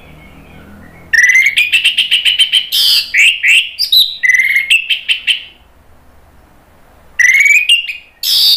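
Orange-headed thrush singing a loud run of quick, sharp whistled notes for about four seconds. After a pause, a shorter burst comes near the end.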